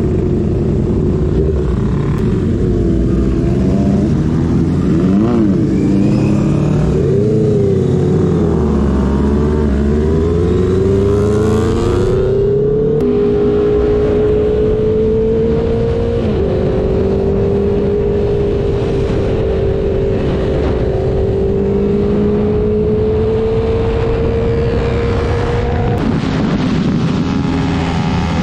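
Motorcycle engine heard on board while riding. The revs rise and fall unevenly for the first ten seconds or so, then climb and settle into a steady, slowly rising drone under load, with a brief dip about sixteen seconds in.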